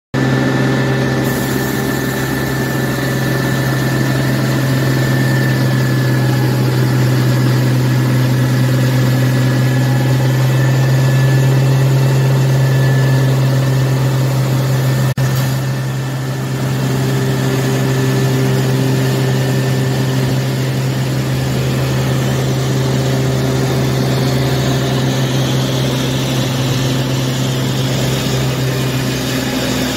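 Steady, loud drone of a heavy engine running at a constant speed. There is a single click about halfway through, and the drone dips there briefly before settling back.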